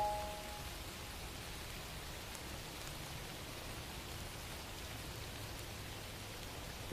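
Steady rain ambience, an even hiss of rain, left bare as the music pauses; the last notes of the music fade away at the start.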